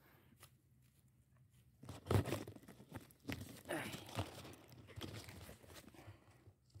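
Footsteps crunching over dry, cracked mud, with the loudest crunch about two seconds in, followed by rustling as a wild spotted dove is grabbed and flaps its wings in the hand.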